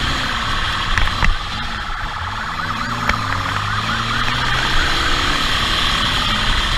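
Police motorcycle siren sounding a fast, repeated rising-and-falling yelp, over the motorcycle's own engine revving up and down during a pursuit.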